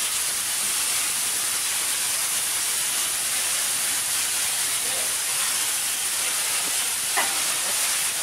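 A steady, even hiss that does not change in level, with a brief faint voice about seven seconds in.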